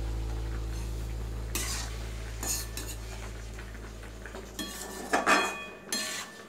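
Slotted metal spatula scraping and clinking against a metal kadai as a pumpkin and potato curry is stirred, with a few scattered scrapes at first and a busier run of them about five seconds in. A low steady hum underneath fades away over the first six seconds.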